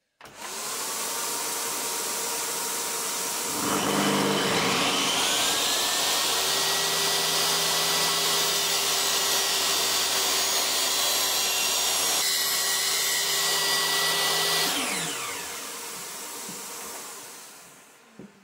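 Table saw started up: a steady rushing noise begins first, then the saw motor joins with a whine rising in pitch as it spins up. It runs steadily through a cut in the tenon jig for about ten seconds, then is switched off, and its whine falls away as the blade coasts down.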